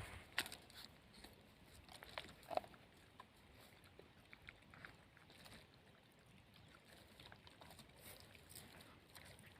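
Near silence, with a few faint sharp ticks or taps in the first three seconds.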